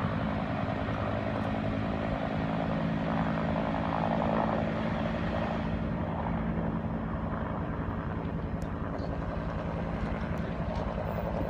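Firefighting helicopter flying over the fire: a steady drone from its rotor and engine, with a rapid beat.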